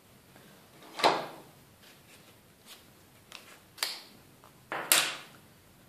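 Foam tape and paper being handled and snipped with scissors on a craft table: a few sharp clicks and snaps, strong ones about a second in and near five seconds and a smaller one near four seconds, with faint ticks between.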